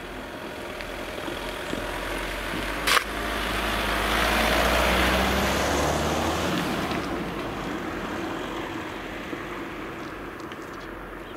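A passenger car driving past over the level crossing: engine and tyre noise rise to their loudest about halfway through, then fade away. A single sharp thump sounds about three seconds in.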